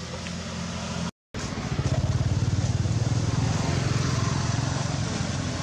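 A small engine running with a fast, even putter, cut by a brief dropout about a second in and louder after it.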